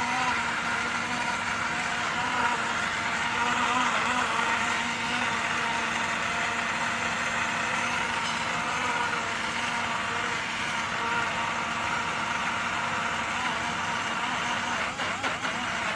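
USB rechargeable portable blender's 7.4 V motor running at a steady pitch, spinning its stainless steel blade through a banana, milk and ice shake, and stopping near the end. No ice is heard rattling against the blade, the sign that the ice is fully crushed.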